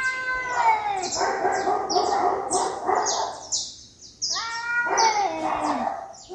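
Cats fighting: long, wavering yowls that bend down in pitch, in two bouts with a brief lull a little past the middle, over a rapid run of short high-pitched sounds.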